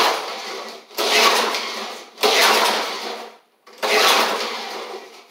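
Recoil starter rope on a Snapper Hi Vac's old Tecumseh engine pulled four times, each pull cranking the engine over in a short burst that fades, without it catching. The engine won't start, and the owner suspects junk in the cylinder head.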